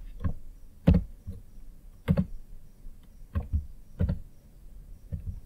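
About half a dozen short, sharp clicks at a computer desk, spaced irregularly and some in quick pairs.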